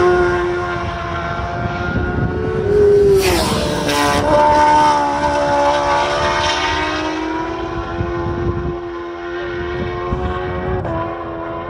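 Superbike race motorcycles at full throttle. One passes close about three seconds in, its high-revving engine note dropping sharply in pitch as it goes by. Then the engine sound slowly fades away up the road, holding a steady note.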